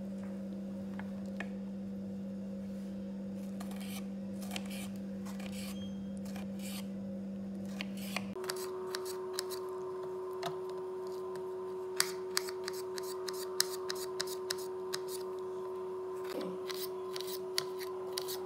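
Kitchen knife cutting a tomato, then dicing it on a ceramic plate: the blade clicks and taps against the plate in irregular sharp ticks, sparse at first and frequent from about eight seconds in. A steady hum lies underneath and changes pitch about eight seconds in.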